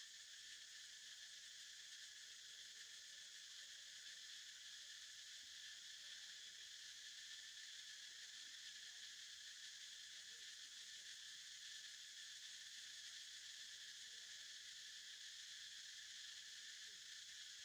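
Faint, steady chorus of insects droning without a break.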